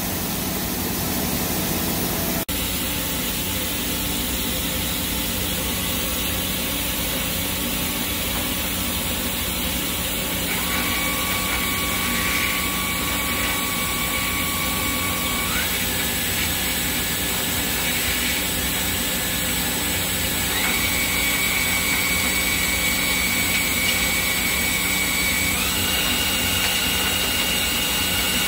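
2008 Tsugami SS20 Swiss-type CNC lathe running under power: a steady machine hum and hiss. About ten seconds in a whine joins it and steps up in pitch every five seconds or so, as a spindle is run up through set speed steps.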